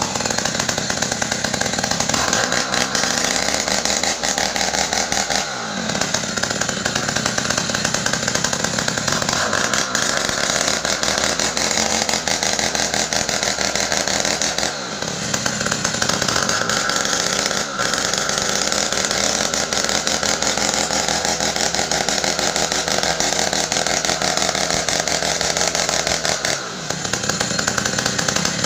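Stihl 070 two-stroke chainsaw running hard while cutting ironwood. Its engine note drops briefly about four times and then picks back up.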